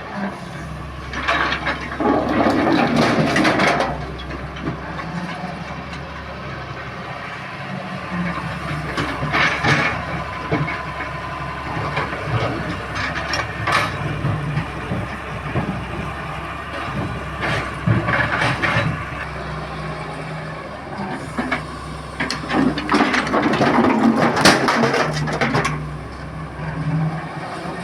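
Doosan Solar 130 excavator's diesel engine running steadily under work, with several louder stretches of noisy scraping and rattling as it digs and loads, the longest near the start and near the end.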